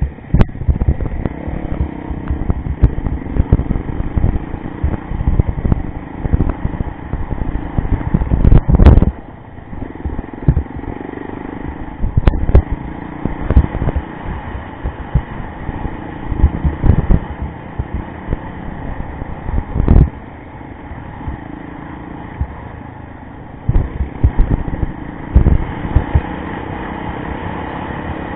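Yamaha rally motorcycle's engine running under way, with many irregular heavy thumps and knocks. The loudest thumps come about nine seconds in, and there is a sharp knock about twenty seconds in.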